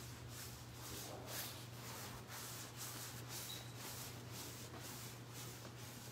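Quiet church room tone with a steady low hum, and faint, irregular shuffling and rustling of people walking up on carpet.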